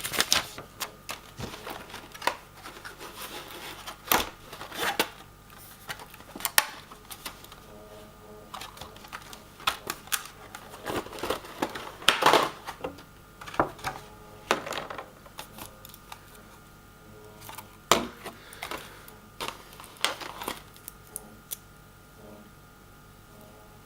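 Hands handling a mouse's retail packaging: irregular clicks, taps and crinkles of plastic and cardboard, thinning out near the end.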